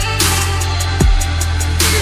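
Electronic dance music with a deep sustained bass line, a deep falling bass drop about a second in, and crash-like noise hits near the start and near the end.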